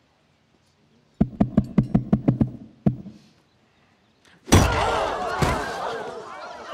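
A quick run of about nine knocks on a wooden tabletop. About four and a half seconds in comes one loud slam, as a nail is driven into the table, followed by a crowd gasping and murmuring.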